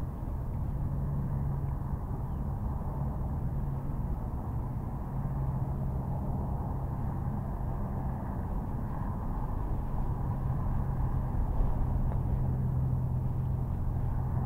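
A steady low hum over a constant haze of low noise, with no distinct events.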